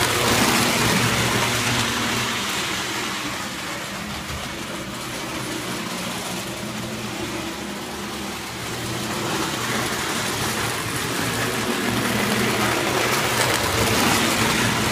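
O-gauge tinplate electric trains running on metal track, with a steady rolling rattle over a motor hum. It is loudest as a locomotive passes close at the start, quieter in the middle, and swells again as it comes round near the end.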